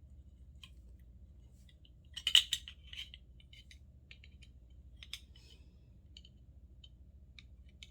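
Small metal doorknob parts clinking and clicking as they are handled, with a louder burst of clinks about two seconds in and scattered light clicks after.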